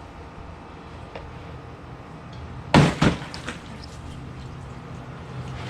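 Two sharp knocks about a quarter second apart, near the middle: a small homemade pocket knife being stabbed into a target, the blade barely going in. A low steady hum runs underneath.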